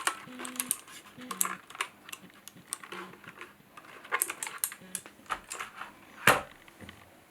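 Typing on a HyperX Alloy FPS Pro mechanical keyboard with Cherry switches: a fast, uneven run of key clicks, with one louder clack about six seconds in.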